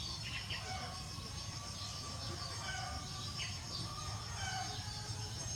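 Birds chirping briefly a few times over a steady low hum.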